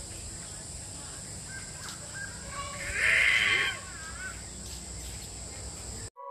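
A harsh, crow-like animal call lasting about a second, around three seconds in, with a few short gliding chirps just before and after it, over a steady high hiss.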